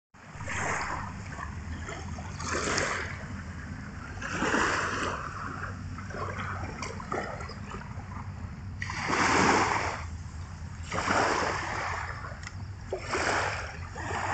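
Small waves lapping and washing onto a sandy shore, a soft swish every couple of seconds over a low steady rumble.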